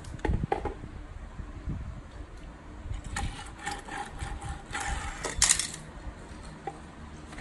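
Small plastic toy car being pushed across a wooden board, its wheels rattling and clattering for a couple of seconds and ending in a sharp click. A few dull knocks near the start as the board is handled.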